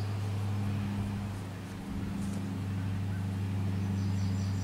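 An engine running steadily nearby with a low, even hum. Birds chirp faintly near the end.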